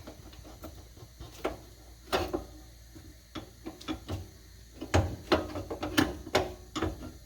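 Irregular metallic clicks and knocks as a car's hood latch is worked loose by hand, the loudest a few seconds in.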